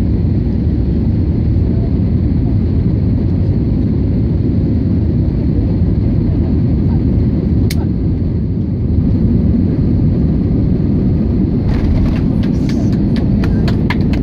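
Passenger-jet cabin noise on landing: a steady low rumble of engines and rushing air. There is one sharp click about eight seconds in. From about twelve seconds a quick run of knocks and rattles sets in as the jet rolls on the runway.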